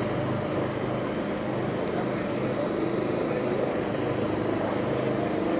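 An engine running steadily: a continuous low hum over a wash of noise.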